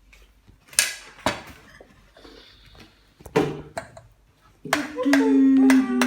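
A few sharp knocks and clatters, like dishes handled, then a child's voice held mostly on one pitch for about a second and a half near the end.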